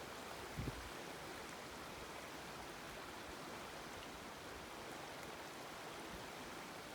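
Mountain stream water rushing steadily, with a brief low bump about half a second in.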